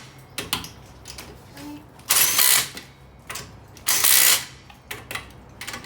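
Drill with a socket spinning wheel lug nuts onto the studs in short bursts of about half a second, two main bursts with lighter clicks and knocks between.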